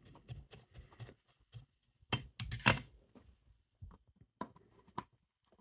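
Light clicks and clinks of a small circuit board and soldering tools being handled on a workbench, with a short cluster of louder clatter about two to three seconds in.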